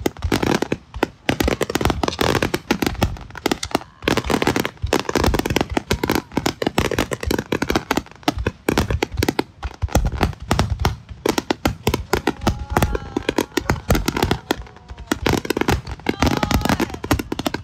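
Aerial fireworks in a rapid, dense barrage: many bangs overlapping one another, with crackling.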